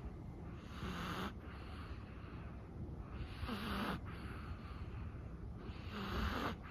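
A sleeping Chihuahua's breathing, close to snoring: three slow breaths about two and a half seconds apart, each with a low snore-like hum and a breathy hiss.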